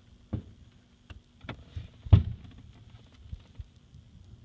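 Aerial firework shells bursting: a series of sharp bangs, the loudest about two seconds in.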